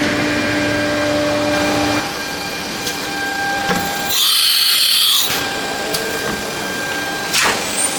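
A nesting CNC router with an automatic tool changer running: a steady machine noise with a few steady whining tones. About four seconds in, a high hissing sound lasts about a second.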